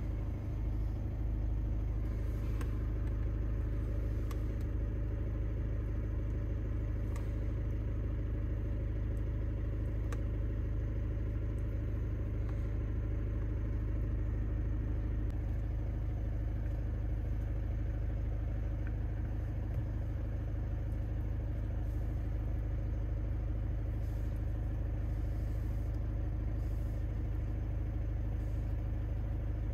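Volkswagen Jetta's engine idling steadily, an even low hum heard from inside the cabin, with a few faint ticks.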